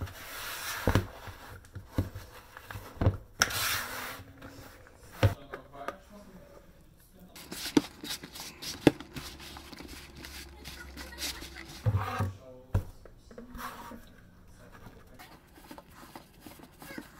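Hands mixing and kneading bread dough, first in a large plastic bowl and then on a countertop: irregular knocks and bumps with short rubbing and rustling sounds.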